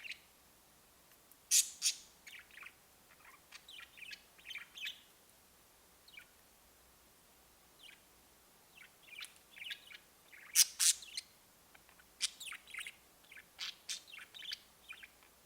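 Budgerigars chirping and warbling in bursts of short, sharp calls, with two louder shrill calls about a second and a half in and again about ten and a half seconds in.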